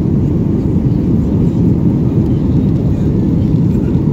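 Steady low roar of jet engines and rushing air heard inside the cabin of a Southwest Airlines Boeing 737 climbing out after takeoff.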